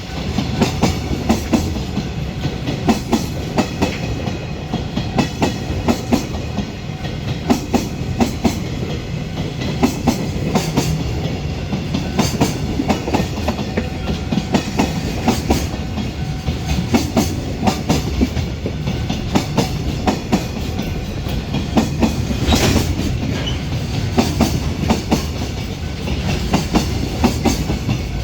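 A container freight train rolling past, its wheels clacking over rail joints in a steady stream of quick, uneven clusters over a low rumble.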